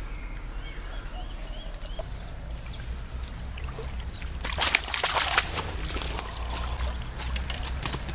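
Water splashing and sloshing for about a second around the middle, then lighter dripping and trickling. Small birds chirp in the first couple of seconds.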